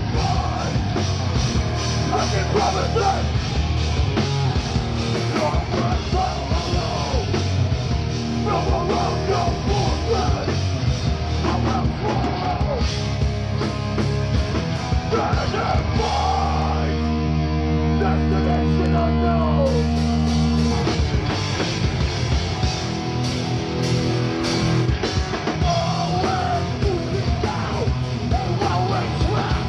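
Live hardcore punk band playing loud: distorted electric guitars, bass and drums with shouted vocals. A little past halfway the band holds one ringing chord for about four seconds, then starts playing again.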